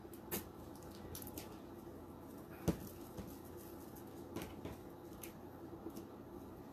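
Faint rustling and a few light clicks from hands working poly burlap petals and zip ties on a wreath board, with one sharper click about two and a half seconds in, over a low steady background hum.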